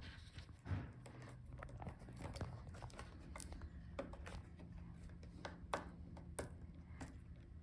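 Hands and small tools working on a laptop's bottom case while rubber feet covers are peeled back to reach screws: scraping and peeling in the first few seconds, then scattered light clicks and taps.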